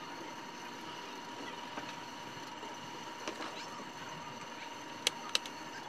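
Steady background hiss with a faint steady whine, then two sharp clicks about five seconds in, a fraction of a second apart, from hands handling an opened blender's plastic base and switch.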